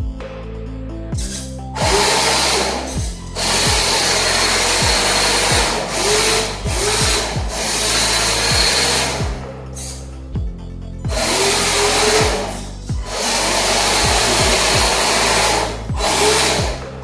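Background music with a small electric drive motor whirring in several stretches, with a steady high whine and short pauses between runs.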